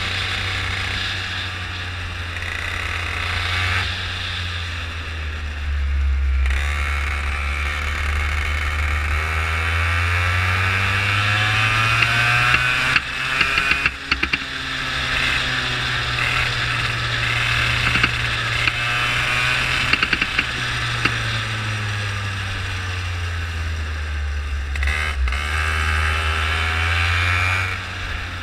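Go-kart engine heard from onboard, with wind noise. Its pitch climbs steadily over several seconds as the kart accelerates down a straight, holds high for several seconds, then falls away as the kart slows for a corner.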